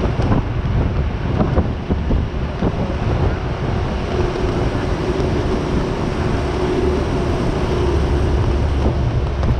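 A vehicle running steadily on the move, with wind rushing over the microphone and a heavy low rumble. A faint steady hum comes in about four seconds in and drops out near the end.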